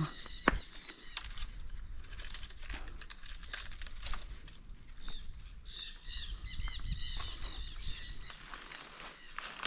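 A bird singing a fast run of repeated arching notes, in two bouts, the second starting a little under six seconds in, over scattered clicks and rustles.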